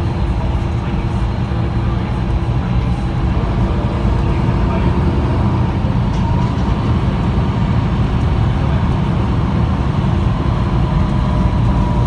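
MAN NL323F city bus heard from inside the cabin, its MAN D2066 diesel engine and ZF EcoLife automatic gearbox running steadily at speed, with a deep drone and a faint whine.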